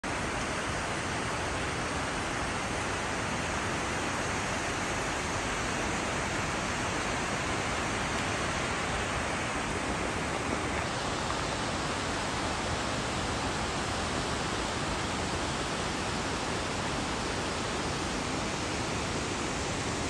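Steady rush of a tiered mountain waterfall, its water cascading down rock steps into the gorge stream as an even, unbroken wash of noise.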